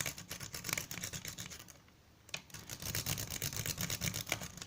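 A triple-peak Bogota rake worked rapidly in and out of a 75mm shutter padlock's keyway under tension, making a fast, rattling stream of small metallic clicks as it scrubs the pins. The raking pauses briefly about two seconds in, then resumes.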